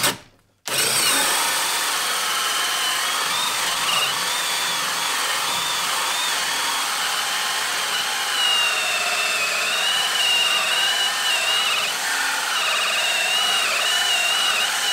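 HILTI brushless cordless drill spinning a large hole saw through a thick wooden beam under load. A steady, loud run starts just under a second in, with a whine that wavers in pitch as the saw teeth bite.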